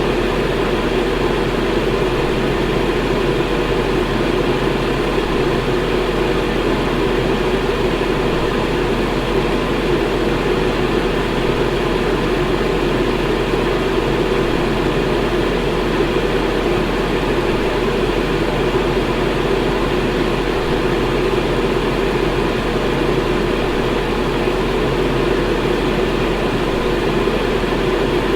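Electric fan running steadily: an even, unchanging whoosh, fullest in the lower middle, with a steady low hum underneath.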